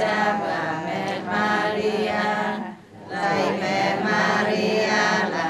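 A group of women chanting a prayer together in unison in Vietnamese, on a near-steady pitch, in two phrases with a short pause about three seconds in.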